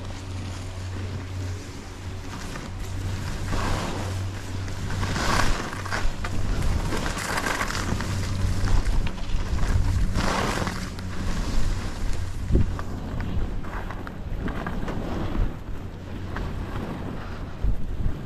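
Wind rushing over the microphone while skiing downhill, with skis swishing through fresh powder in several turns that come as repeated swells of hiss.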